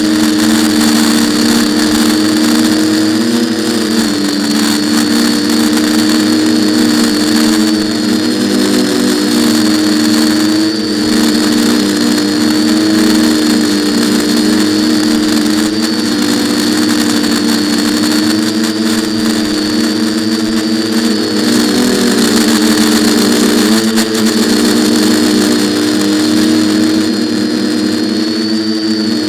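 Quadcopter's electric motors and propellers running up close, a steady buzzing hum whose pitch wavers slightly with the throttle, with a thin high whine above it.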